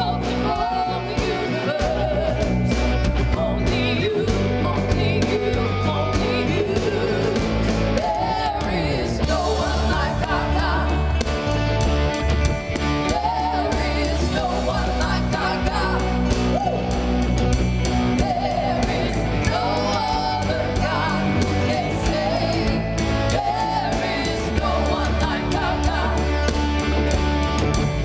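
Worship music: singing over a full band with a strong bass and drum low end.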